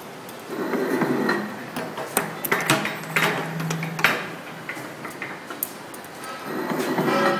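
CNC punching and forming machine running its clip-making tooling: sharp metallic clicks and clacks at uneven spacing over a steady low hum, with a swell of whirring about a second in and again near the end.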